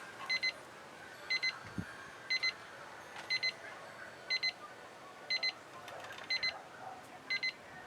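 Timer alarm beeping: quick groups of three or four short high-pitched beeps repeating about once a second, signalling that the countdown has run out.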